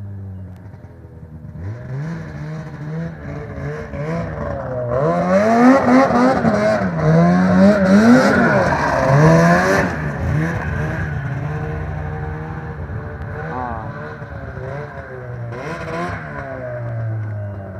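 Snowmobile engine revving up and down in repeated surges, loudest from about five to ten seconds in, then settling to a lower, steadier note near the end.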